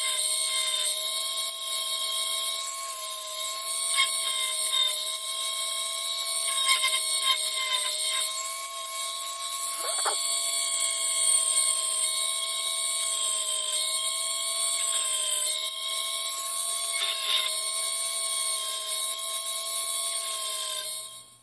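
Flexible-shaft rotary tool running at a steady high whine as it drills small holes in a plastic model spaceship hull. It stops near the end.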